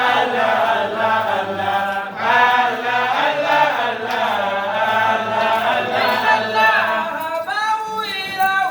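A group of voices chanting an Arabic devotional poem in praise of the Prophet, with long held, wavering notes over a steady low hum of voices. Near the end it thins to one clearer voice.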